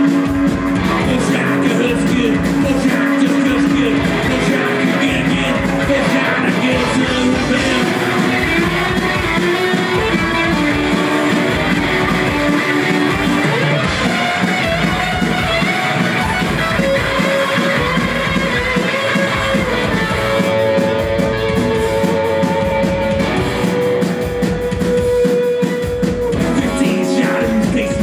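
Punk rock band playing live: electric guitar, bass and drums with a singer, loud and continuous.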